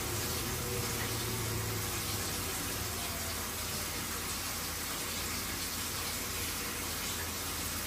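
Glow-worm Micracom combi boiler running through an ignition attempt with its gas supply isolated, so it cannot light: a steady hiss with a low hum.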